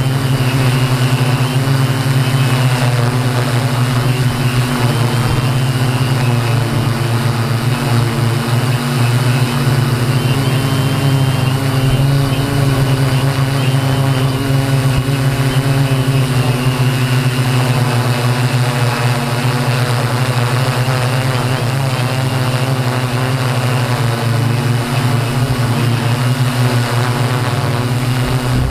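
Align M480 quadcopter's electric motors and propellers humming steadily, heard through the camera mounted on the craft during low-level flight.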